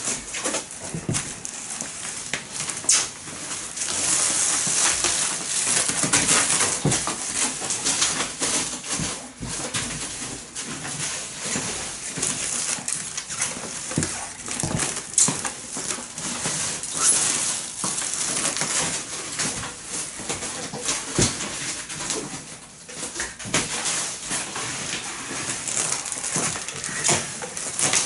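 Plastic stretch wrap film unrolling off a hand-held roll and being pulled around a cardboard box, crackling with many small pops as it stretches and rubs on the cardboard.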